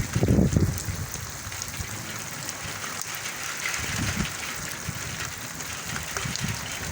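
Steady rain falling, an even hiss, with short low rumbling thumps, loudest in the first second and weaker again later on.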